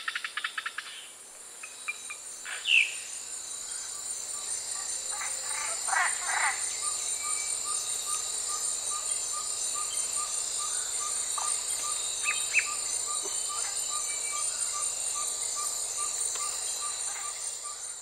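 Recorded tropical rainforest ambience: a steady high-pitched insect chorus, with a short call repeating about twice a second. Several bird chirps come through in the first seven seconds, the loudest at about three seconds.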